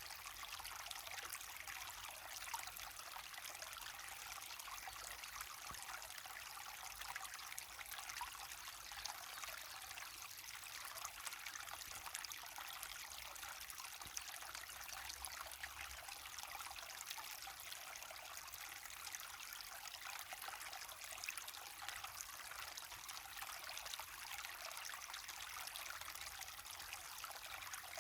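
Small waterfall splashing and trickling into a stream: a steady, fine, crackling rush of water with no pauses.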